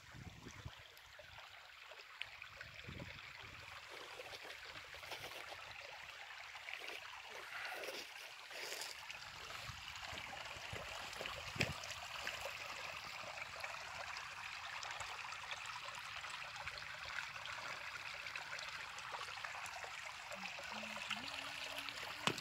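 Shallow stream trickling and gurgling over gravel and pebbles, getting louder over the first several seconds and then steady. A few sharp clacks of stones stand out above it.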